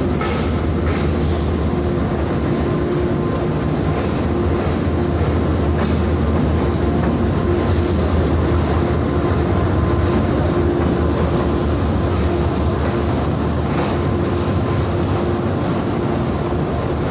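Train running: a steady, loud low engine drone with a constant hum, and a few faint clicks over it.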